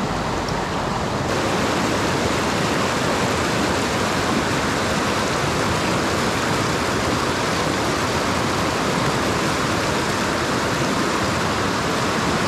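Steady rushing of a river's flowing water, growing slightly louder and brighter about a second in.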